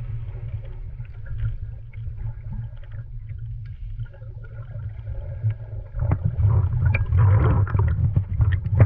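Underwater sound heard through a submerged camera: a steady low rumble of moving water with scattered bubbling and crackling, getting louder and busier about six seconds in.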